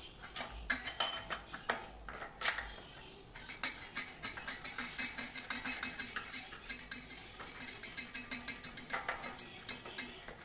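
Metal tools clicking and clinking on a bicycle hub as its axle nut is unscrewed and the axle worked out: a few separate clinks, then from about a third of the way in a rapid run of sharp metallic clicks, several a second, lasting almost to the end.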